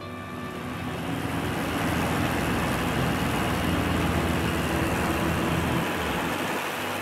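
Light floatplane's engine and propeller noise swelling up over a couple of seconds, holding, then easing off about six seconds in.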